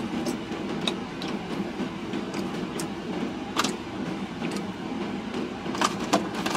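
Steady low hum inside a parked car's cabin, the engine and air conditioning running, with a few short crinkles and clicks from handling food wrappers, the loudest about three and a half seconds in and near the end.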